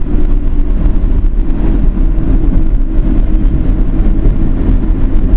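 Car driving at road speed, heard from inside the cabin: a loud, steady rumble of engine and tyre noise.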